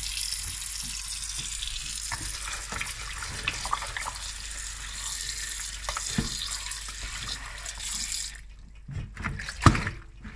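Kitchen tap running into a stainless-steel sink over leafy greens in a plastic colander, with hands swishing and handling the wet leaves. The water cuts off about eight seconds in, leaving a few light knocks and splashes.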